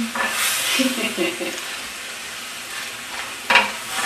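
A utensil stirring chicken pieces and green grapes through a simmering cream sauce in a metal pan, over a steady sizzle, with a sharper scrape or knock against the pan about three and a half seconds in.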